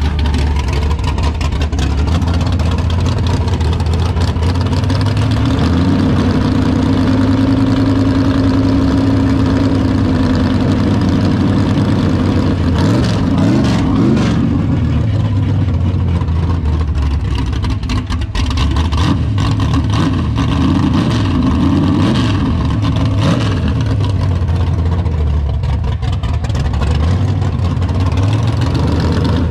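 Freshly rebuilt 355 cubic-inch small-block Chevy V8 with a solid roller cam and bigger headers, running mostly at a steady idle, with its pitch swinging up and down a few times around the middle.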